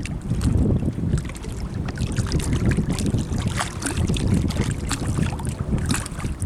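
Wind buffeting the microphone in a heavy, uneven rumble, with scattered short crackles throughout.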